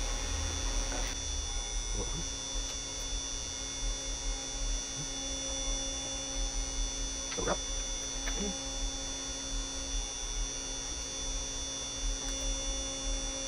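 Steady electrical hum and buzz from powered audio gear, with a few light clicks and knocks as RCA cables are handled and plugged into a crossover.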